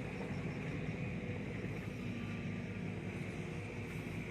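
Heavy diesel engine, of the excavator or dump truck at work on the muddy site, running steadily at an even speed with a low hum.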